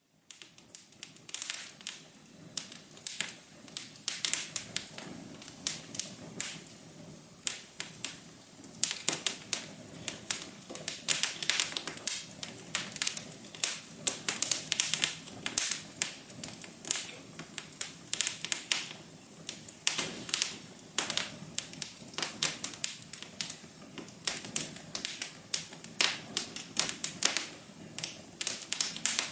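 Wood fire crackling in a fireplace: dense, irregular pops and snaps over a soft, steady low hum.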